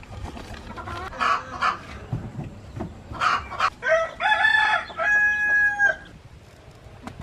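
Chickens clucking, then a rooster crows once about four seconds in, the call rising and ending on a long held note.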